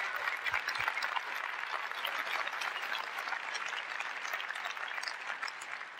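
Large audience applauding, the clapping slowly dying away.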